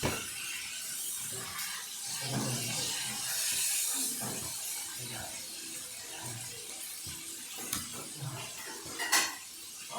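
Slime being handled and squished by hand, a soft crackling hiss with scattered small clicks and one sharper click about nine seconds in.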